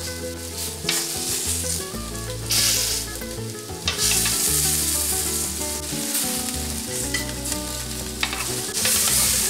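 Spiced lamb chops sizzling on a hot grill pan while tongs lift them off, the sizzle swelling and easing every second or two.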